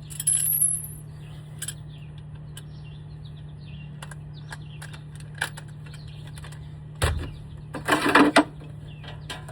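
Scattered metallic clicks and clinks of hand tools as a socket is fitted to the steering shaft's bolts, with a short clatter right at the start and a louder clatter with a thump about seven seconds in, over a steady low hum.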